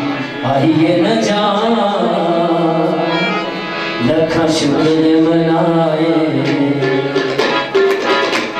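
A male singer performs a Masih geet, a Punjabi Christian devotional song, with harmonium and tabla accompaniment. He sings long, wavering held notes, and the tabla strokes come more to the fore near the end.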